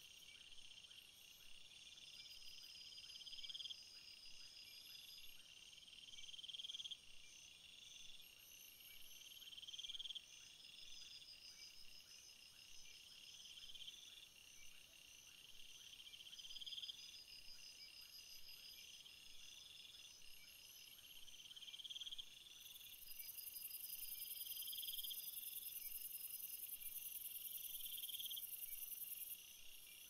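A faint insect chorus of crickets chirping in swelling pulses about every second and a half, over a steadier, higher trilling. A very high-pitched steady buzz joins for about six seconds in the second half.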